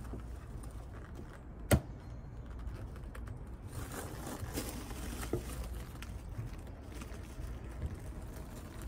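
Copper-roofed wooden beehive outer cover being worked loose and lifted off by hand: one sharp click about two seconds in, then a few softer knocks over a steady low rumble.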